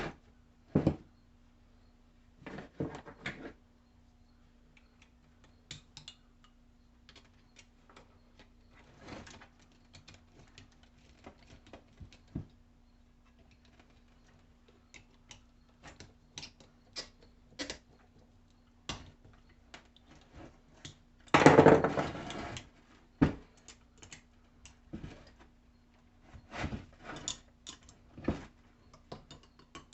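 Scattered clicks, taps and knocks of small metal parts and hand tools being handled on a workbench, with a louder clattering burst of about a second past the middle. A faint steady hum runs underneath.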